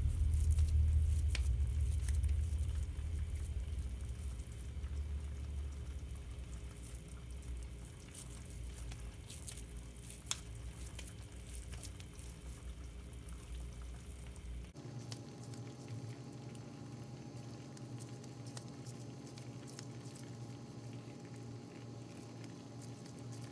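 Chopped onion frying in hot oil in a non-stick pan, sizzling with scattered crackles as raw meatballs are laid into it. A low rumble underneath cuts off abruptly about two-thirds of the way through.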